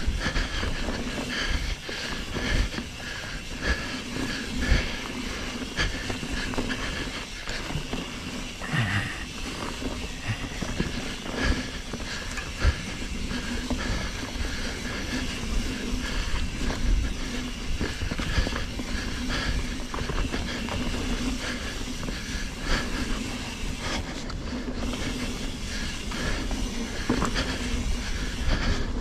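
Mountain bike rolling fast along a dirt singletrack: knobby tyre noise with a steady hum, and the bike's rattles and knocks over bumps.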